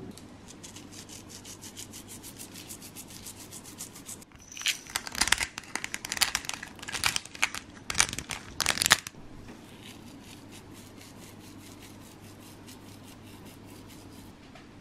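Dry crinkling and rasping of seasoning being rubbed and sprinkled between fingers over the pizza sauce. It starts as rapid fine scratches, turns to louder irregular crackling rubs from about four to nine seconds in, then falls back to fainter fine scratches.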